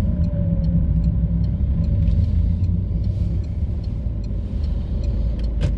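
Inside a moving car's cabin: steady low engine and road rumble as the car drives round a roundabout, with one sharp click near the end.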